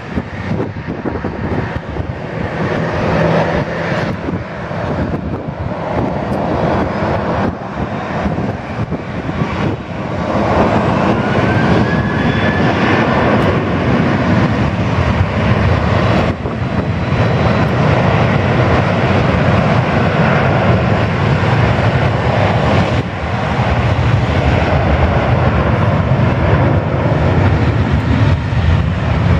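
Jet engine noise from a Boeing 737-800's CFM56-7B turbofans running up to takeoff thrust. The steady roar grows louder about ten seconds in, with a brief rising whine as it builds.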